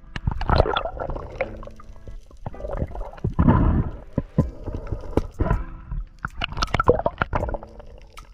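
Water gurgling and sloshing in irregular surges around a camera at and just below the sea surface.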